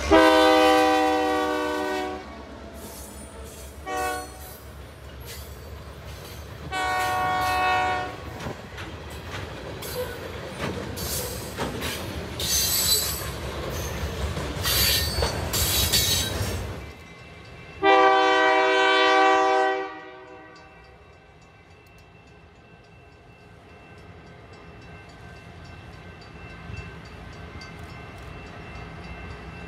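Locomotive air horn sounding a chord in several blasts: a long one, a short toot, another long one, and a last long blast a little after halfway. Between the blasts the train runs past, rumbling, with high-pitched wheel squeal. The running noise falls away after the last blast.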